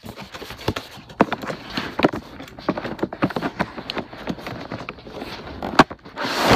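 Plastic sleeve crinkling and a cardboard box scraping as the box is worked out of a tight vacuum-sealed plastic wrap: a run of irregular crackles and small knocks, then a longer, louder sliding rush near the end.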